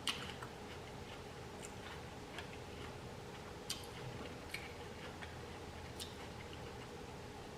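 Faint eating sounds at a table: sharp soft clicks every second or so over a low steady hum.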